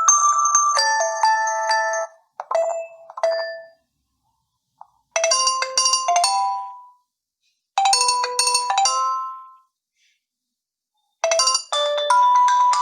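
Nokia 1 Plus smartphone playing its preset ringtones through its speaker: short, bright electronic melodic phrases with pauses between them. Two similar phrases come in the middle, and a new, busier melody starts near the end.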